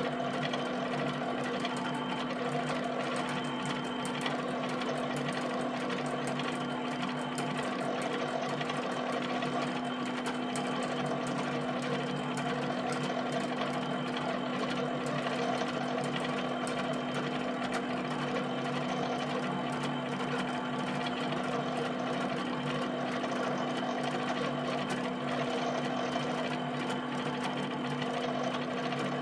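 HP 7585B pen plotter drawing a field of dots: the pen taps rapidly up and down on the paper, a fast, even chatter, over a steady hum from the motors driving the pen carriage and rolling the paper back and forth.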